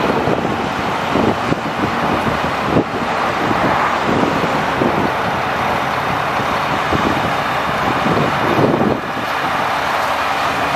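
The Caterpillar C7 inline-six diesel of a Sterling L8500 grapple truck running steadily while the truck-mounted grapple boom is worked, with a short knock about three seconds in.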